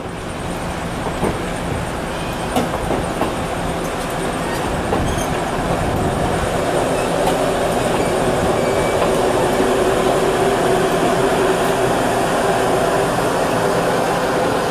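Heavyweight passenger cars rolling past on the rails: a steady rumble of steel wheels with a few sharp clacks over rail joints, growing a little louder toward the end.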